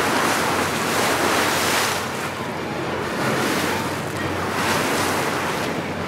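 Sea water rushing and splashing past the hull of a moving tour boat, swelling and easing every couple of seconds, with wind buffeting the microphone. A low steady hum, the boat's engine, runs underneath.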